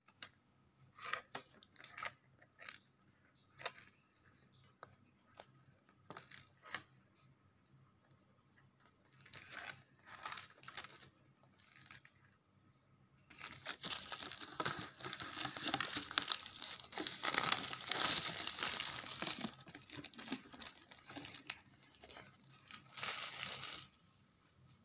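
Plastic packaging on a cup of Samyang carbonara Buldak ramen crinkling as it is handled. Scattered crackles come first; about halfway in, a long stretch of tearing and crumpling starts, followed by a short burst near the end.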